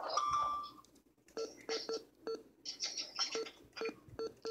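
RadioShack 12-996 weather radio giving short key-press beeps, about a dozen in quick, uneven succession as its buttons are pressed repeatedly, each with a small button click.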